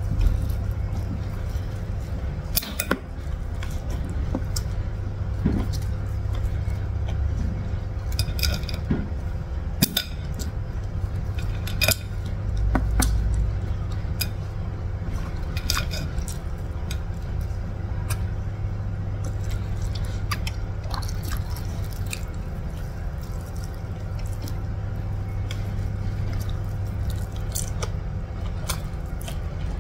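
Close-up eating by hand: wet mouth clicks and smacks of chewing, and fingers squishing and mixing rice with urap and rendang, heard as scattered sharp clicks over a steady low hum.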